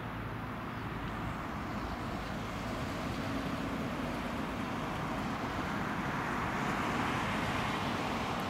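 Airbus A320neo jet on final approach, its engine noise a steady rush that grows gradually louder as it comes closer.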